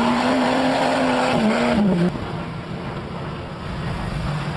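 Lifted Jeep Wrangler's engine revving hard while it sits stuck in deep mud on tractor-tread tires. About two seconds in the sound cuts off sharply, and a quieter engine running at lower revs follows.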